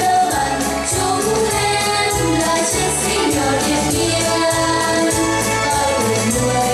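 A children's vocal group of girls singing in unison into microphones, over musical accompaniment with a steady bass beat.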